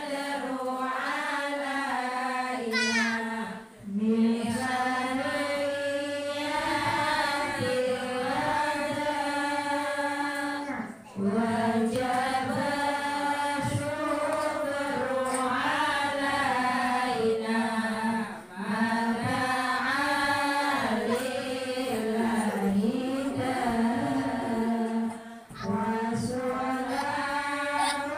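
A group of women chanting an Islamic devotional song (sholawat) in unison, in long melodic phrases with a brief pause about every seven seconds.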